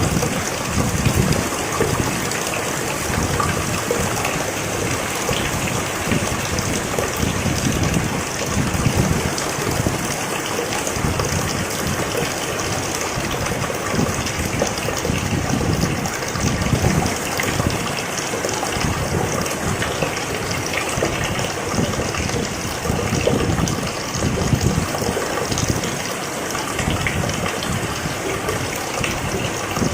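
Steady rain falling, with a low rushing that swells and fades every few seconds.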